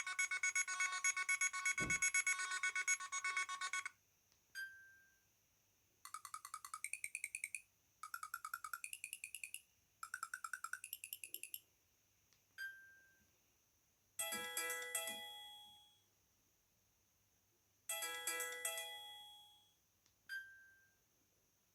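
Miss Sixty mobile phone, made by Alcatel, playing its built-in ringtones one after another through its small speaker. A fast repeating electronic ringtone stops about four seconds in; then come three short warbling phrases and two chiming phrases, each a separate tone cut short, with a single short beep between them.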